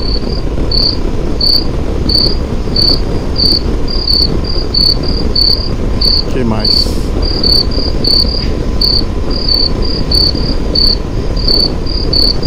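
Cricket chirping: short high chirps repeated about twice a second, starting abruptly, over a steady low rumble of wind and road noise from the moving motorcycle. A brief falling whistle-like glide sounds midway.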